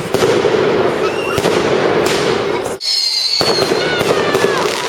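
Fireworks going off: a dense, continuous crackling and popping, with a thin high whistle about three seconds in.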